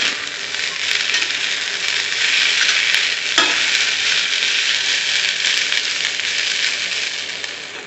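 Green beans and onions sizzling as they are stir-fried in a metal kadhai, a steel spatula scraping and turning them. The spatula knocks once sharply on the pan about three and a half seconds in.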